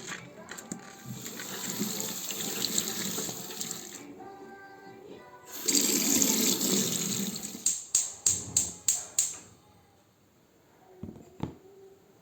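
Water running from a tap into a sink in two spells, then a quick run of about seven sharp clicks or knocks.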